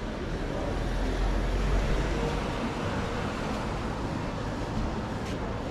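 Street traffic noise: a car passing, its low rumble swelling a second or so in and then easing off.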